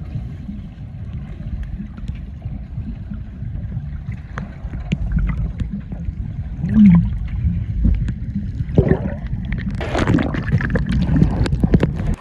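River water sloshing and gurgling around the camera, with a steady low wind rumble on the microphone. The water noise grows busier and sharper in the last two seconds.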